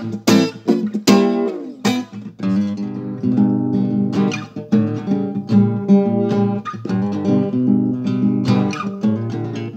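Acoustic guitar strummed in a reggae rhythm, chords struck over and over with no singing.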